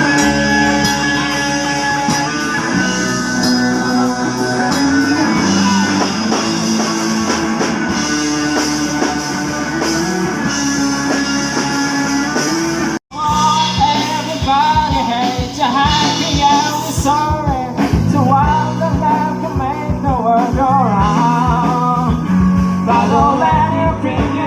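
Background music: a loud instrumental passage with held notes that cuts off abruptly about 13 seconds in, followed by a song with singing and a steady drum beat.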